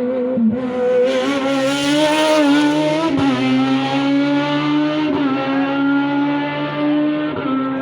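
Rally car engine accelerating hard under load, shifting up once about three seconds in, then pulling steadily higher in pitch through the next gear.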